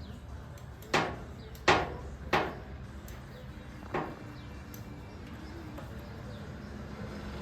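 Four sharp metallic knocks with a short ring after each, the loudest about two seconds in: a wrench or ratchet striking while a stuck oil drain plug is being broken loose.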